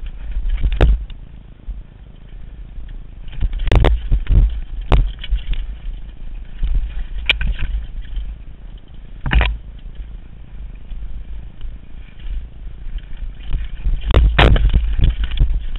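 Mountain bike rattling down a rocky singletrack: tyres crunching over dirt and loose stones, with sharp knocks and clatter as the bike hits rocks, in clusters around four seconds in and again near the end, over a steady low rumble.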